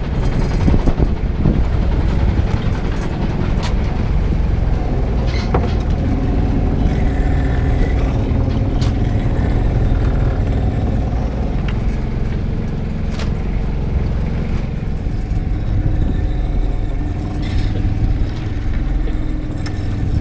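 Small fishing boat's engine running with a steady low rumble, with a few sharp clicks and knocks as the netted crab traps are handled on deck.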